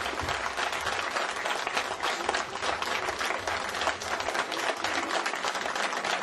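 Audience applauding: many hands clapping at once in a dense, even clatter.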